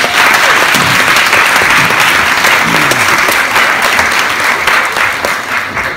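Audience in a cinema auditorium applauding: dense, steady clapping from many hands that thins out near the end.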